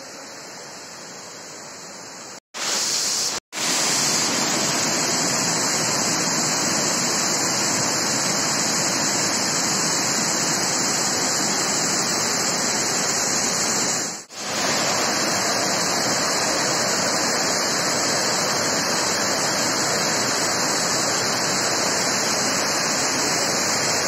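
Waterfall rushing: a steady, even noise of falling water. It is quieter for the first couple of seconds, cuts out briefly twice around two and a half to three and a half seconds in, then comes back louder, with one more short dip about halfway through.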